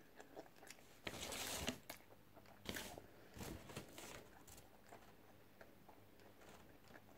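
A person biting into and chewing food, with a louder crunchy burst about a second in, then a few shorter, quieter crunches.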